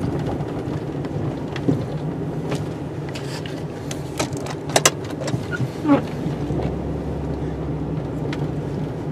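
Snowplow truck's engine running steadily, with a few short sharp knocks and clicks as the truck works into a snow pile to break up its front edge.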